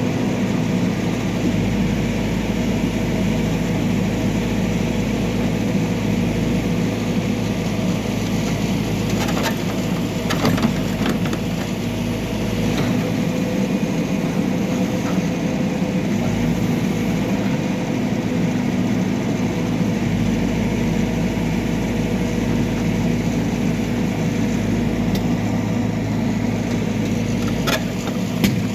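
Backhoe loader's diesel engine running steadily, with a few sharp metallic knocks about a third of the way in and again near the end.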